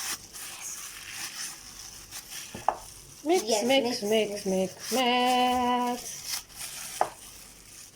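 Soft, crackly squishing and scraping of homemade play dough being mixed and kneaded by hand in a bowl. Partway through, a voice says 'mix' and then holds one steady note for about a second.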